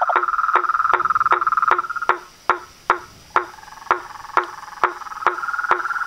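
Night chorus of frogs and toads at a pond: a fast pulsing trill that breaks off about two seconds in and comes back near the end, over a steady series of short knocking calls, about two and a half a second.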